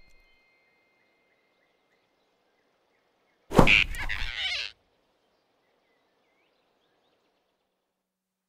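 Animated-film sound effect of a sudden grab: a sharp whoosh-and-snatch about three and a half seconds in, lasting about a second and sweeping down in pitch, as the rabbit seizes the flying squirrel. Near silence before and after it.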